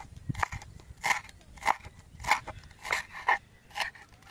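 Large kitchen knife chopping fresh coriander on a wooden chopping board: a steady run of sharp chops, a little under two a second, the blade knocking on the wood with each stroke.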